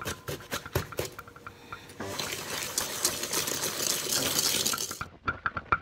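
Wire whisk working eggs and brown sugar in a mixing bowl: a few separate taps of the wires against the bowl, then about three seconds of fast, continuous whisking, a quick rattle of wires on the bowl, which stops suddenly near the end.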